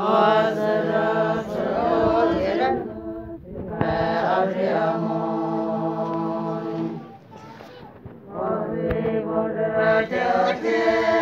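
A group of women singing together in long, held phrases, with short pauses between the phrases.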